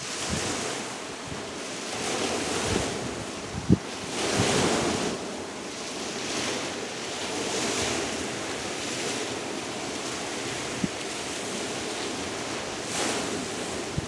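Small waves washing up a pebble beach and drawing back, the surf swelling and ebbing every few seconds. Wind buffets the microphone, with a sharp low thump about four seconds in and another near eleven seconds.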